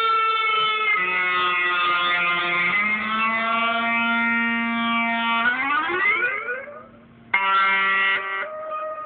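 Fender electric guitar sustained by an E-Bow: long held notes with no pick attack, changing pitch about a second in and again near three seconds. Around six seconds the note slides upward and fades away. A new note starts abruptly just after seven seconds and cuts off about a second later.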